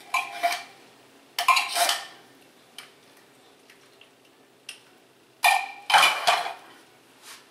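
Metal spoon clinking and scraping against a stainless-steel pot and a tin can as condensed soup is spooned in, in three clattering bursts with a few small ticks between; the loudest comes about five and a half seconds in.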